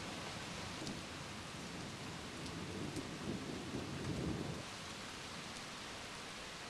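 Steady rain hiss, with a low rumble of thunder swelling from about two and a half seconds in and dying away at about four and a half seconds.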